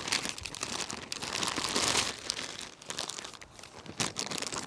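Packing material rustling and crinkling as hands rummage through it, with scattered small clicks and knocks.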